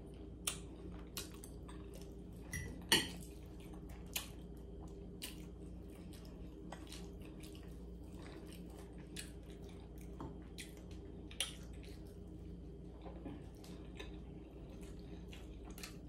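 Close-up eating sounds: chewing of pasta and garlic bread, with scattered sharp clicks of a fork against a plate, the loudest about three seconds in.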